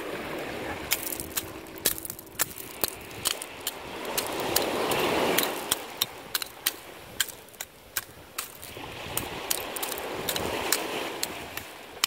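Small waves washing in and swelling up twice, with a run of sharp, irregular clicks and taps throughout.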